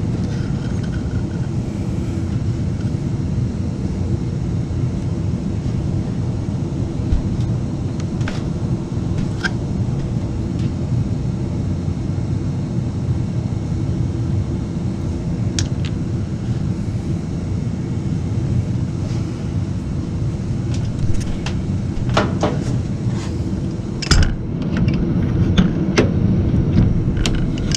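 Steady low rumble of background machinery or room noise. Over it, scattered clicks and knocks of hose connections and plastic fittings being worked loose from a washing machine's dispenser diverter valve, coming thicker near the end.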